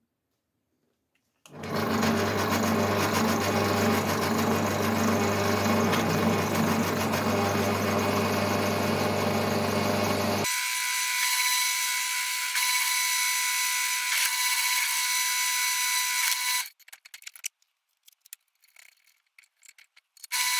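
A bench pillar drill starts up about a second and a half in and runs steadily, its bit drilling through a steel plate. About ten seconds in the sound changes abruptly to a higher, steady whine with a clear tone, which stops shortly before the end. Only a few faint clicks follow.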